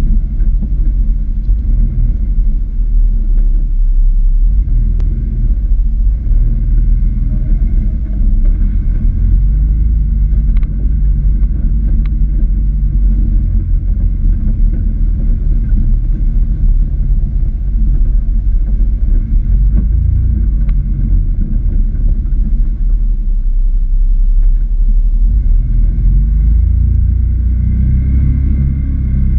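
Can-Am Maverick X3 Turbo side-by-side's turbocharged three-cylinder engine running at an easy trail pace, a steady low rumble that swells and eases with the throttle. A few light knocks come through from the ride over the trail.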